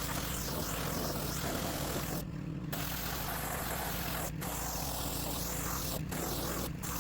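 Pressure washer running: a steady engine hum under a loud hiss of water spray, the spray cutting off briefly several times, longest for about half a second a little past two seconds in.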